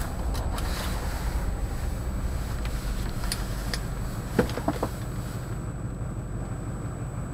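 Steady low rumble of a car's engine and road noise heard from inside the cabin as it slows almost to a stop, with a few sharp clicks about four and a half seconds in.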